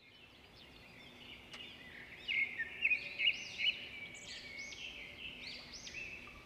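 Birdsong: a quick run of short, high chirps, each rising and falling, starting about two seconds in over a faint background hiss.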